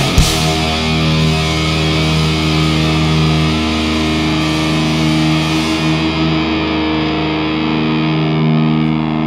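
Live heavy metal band: a last drum and cymbal hit at the very start, then distorted electric guitars and bass hold one ringing chord. The cymbal wash fades out about six seconds in while the chord keeps sounding.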